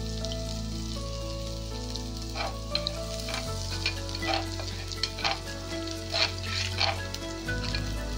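Chopped garlic sizzling steadily in hot oil in a non-stick kadai. From about two and a half seconds in, a spatula stirs it, making short scraping strokes a couple of times a second. Sustained background music chords play underneath.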